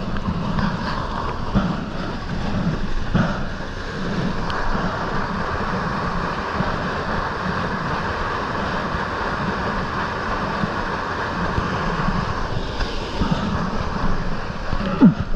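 Steady rushing of a mountain stream's water, with a few faint knocks and a short falling sound near the end.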